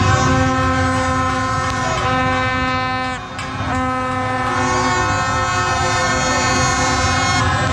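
Many horns sounding at once from a street crowd of celebrating football fans: long, steady, overlapping tones of several pitches over a constant crowd din. The horns drop out briefly about three seconds in, then resume.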